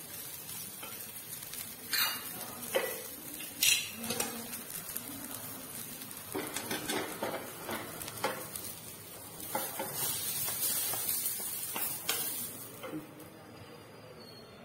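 Steel cookware clinking and scraping: a few sharp metal clinks, then roasted turkey berries (kallatte) tipped and scraped out of a steel kadai held in tongs into a pot of tomato gojju. About ten seconds in, a hiss lasts a few seconds as they pour in.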